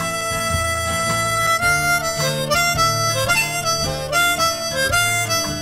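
Harmonica playing a mournful melody, a single line moving from note to note, over acoustic guitar and bass backing: the instrumental break of a 1970s country-folk song.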